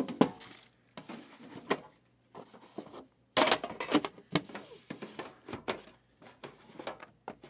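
Trading cards, card holders and cardboard box lids being handled on a table: a run of irregular sharp taps and knocks with short rustles in between.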